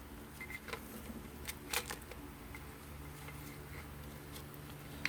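Light scattered clicks and taps as the rear timing chain cassette and chain of a Ford 4.0L V6 are worked loose by hand, over a steady low hum.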